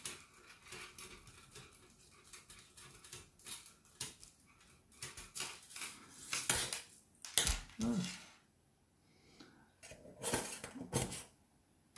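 Thin metal panels of a folding camping firebox clinking, scraping and clacking against each other as they are fitted together by hand, with a few louder clacks a little past halfway and again near the end.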